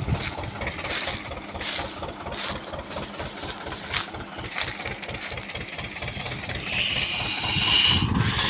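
Escort 335 tractor's three-cylinder diesel engine chugging under load while it pulls a heavily loaded sugarcane trolley. It is a steady low pulsing beat that grows louder near the end.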